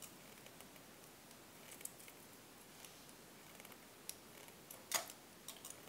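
Faint, scattered clicks and ticks of small pliers working thin wire, as the jaws grip and twist it into coils. The loudest click comes about five seconds in.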